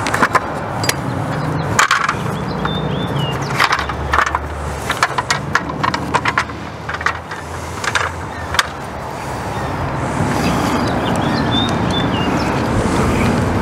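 Wind rumbling on the microphone, with a scatter of short clicks and clacks as the awning's roller-tube end cap and arm are handled before the spring is wound. The rumble grows louder in the second half.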